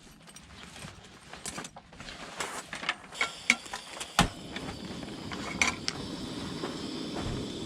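Scattered mechanical clicks, clacks and knocks, with one sharp knock about four seconds in. From about halfway, a steady low rushing noise sets in.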